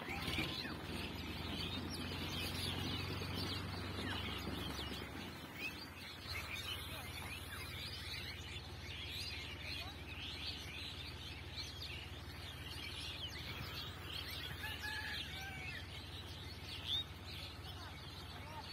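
Many small birds chirping, with short high chirps overlapping throughout. A low steady hum underneath fades out about five seconds in, and there is a single brief bump near the end.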